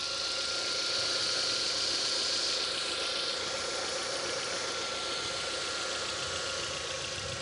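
Hydraulic pump running with a steady high hiss and a thin constant whine over an idling engine: a strange noise that the owner suspects comes from the pump.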